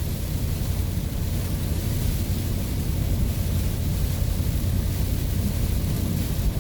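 Steady road noise inside a Ford van driving on a wet highway in heavy rain: a constant low rumble of engine and tyres under a hiss of rain and spray.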